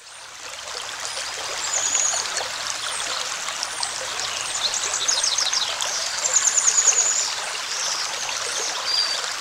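Running stream with an even rushing and trickling, fading in over the first couple of seconds, with short high chirps and trills coming in several groups over it.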